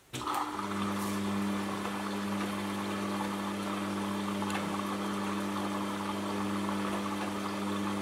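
Front-load washing machine moving water: a steady electric hum from a pump or valve over rushing water, switching on suddenly. The lowest hum tones drop away near the end.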